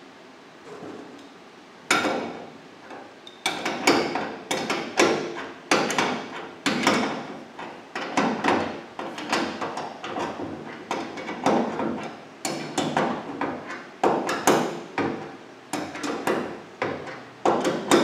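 Repeated sharp metal knocks and clanks, about one or two a second with a short ring after each, starting about two seconds in: tools and a bolt working against the steel hitch frame of a Land Pride rotary cutter while a new bushing is bolted in.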